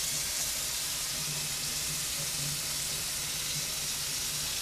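Kitchen tap running steadily into a stainless steel sink, the stream breaking over hands and freshly cleaned puffer fish being rinsed under it.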